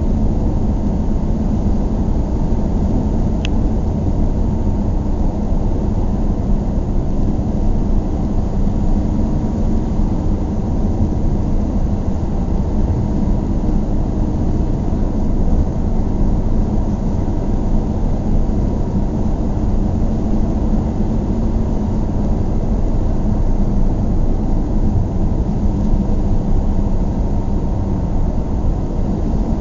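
Steady low rumble of a car driving in traffic, heard from inside the cabin: engine and tyre noise with a faint steady hum. A single brief tick about three seconds in.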